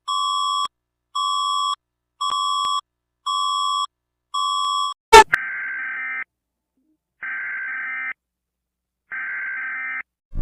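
Emergency Alert System alarm played in reverse: a string of buzzy electronic beeps, about one a second, then a sharp, very loud swooping blip about five seconds in, then three roughly one-second buzzing data bursts with silent gaps, like an alert's digital header tones.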